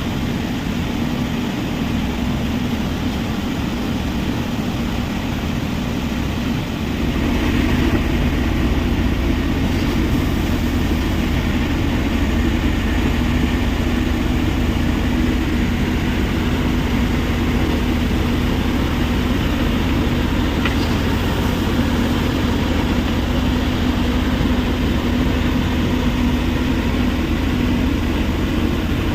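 Heavy machinery of a rock crushing plant running steadily, a continuous mechanical noise with a constant low hum that grows louder about seven seconds in.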